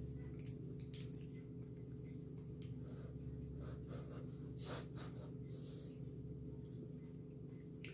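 Fingers peeling a cooked shrimp, with a few soft shell clicks and rustles and some breaths through the nose, over a steady low hum.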